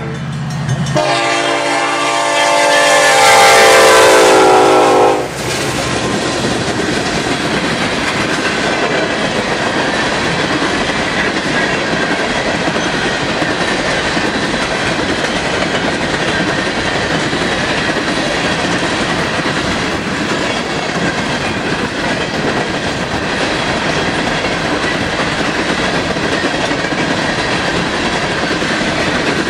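A diesel locomotive's air horn sounds one long chord of several notes, falling slightly in pitch, and cuts off about five seconds in. Then comes the steady rumble and clickety-clack of an empty coal train's hopper cars rolling past.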